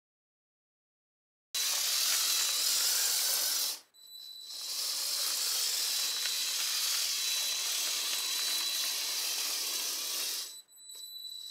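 Lego Technic train's electric motors and gearing running as the six-wheel bogies roll over Technic-beam track, a steady hissing rattle with a thin high whine. It starts after about a second and a half of silence and drops out briefly about four seconds in and again near the end.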